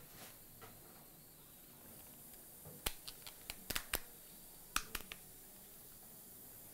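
Scissors snipping through a sterile plastic-and-paper blister pack: a run of about ten short, sharp snips and clicks, roughly between three and five seconds in.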